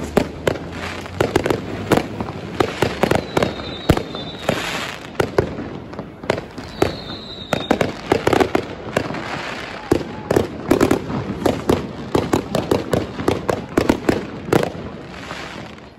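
Fireworks and firecrackers going off in rapid, unbroken succession, sharp bangs overlapping with crackling and hiss, with two short high whistles a few seconds apart.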